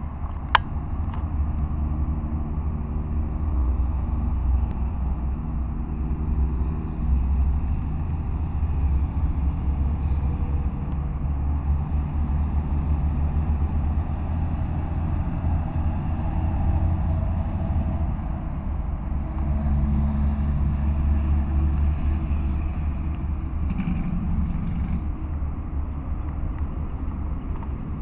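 Steady low rumble of a car's engine and road noise heard from inside the moving car, with an engine hum that rises and falls slightly. A sharp click about half a second in.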